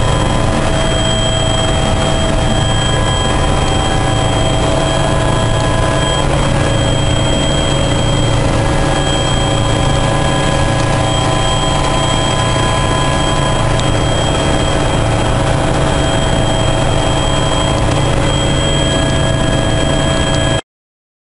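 Helicopter cabin noise in flight: a loud, steady drone of engines and rotors with high, steady whine tones over a low throb. It cuts off suddenly near the end.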